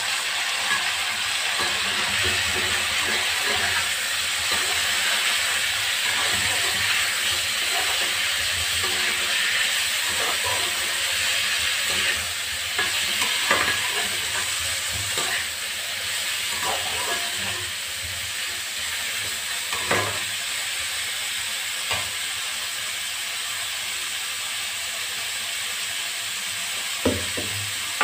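Cauliflower florets sizzling in hot oil in a steel kadai, stirred with a perforated steel ladle that now and then scrapes and knocks against the pan. The sizzle eases off a little in the second half.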